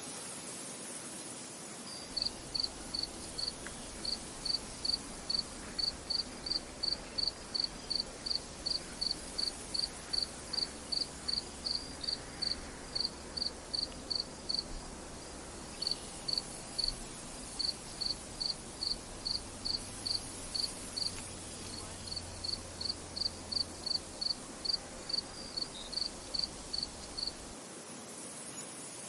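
A cricket chirping in an even rhythm, about three short high chirps a second with a few brief pauses, over a steady hiss of wind. The chirping starts about two seconds in and stops shortly before the end.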